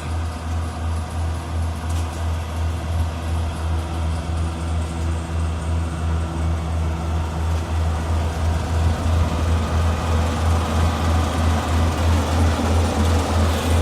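Daedong DSC-62G half-feed combine harvester running, a steady machine drone with a regular low throb, growing louder and fuller about halfway through.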